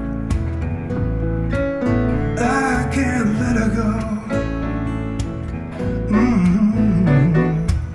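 Acoustic trio of steel-string acoustic guitar, upright bass and grand piano playing the closing bars of a slow ballad, with wordless male singing rising and falling over it twice.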